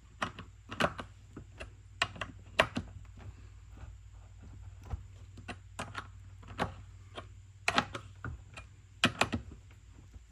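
Irregular sharp clicks and light knocks, a dozen or so at uneven intervals, from a chainsaw and hand tools being handled just after a new chain has been fitted and tensioned, over a low steady hum.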